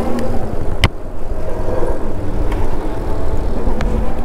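Wind buffeting a helmet-mounted GoPro while riding an electric bike on the road, a heavy steady rumble with road and traffic noise under it. A sharp click or knock comes about a second in.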